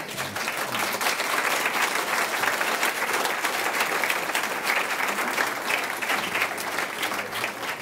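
Audience applauding, many hands clapping steadily and fading near the end.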